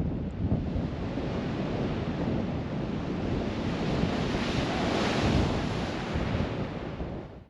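Ocean swell crashing and rushing against a rocky shore, with wind buffeting the microphone. A louder, hissing surge of water builds about four to five seconds in, then the sound cuts off suddenly.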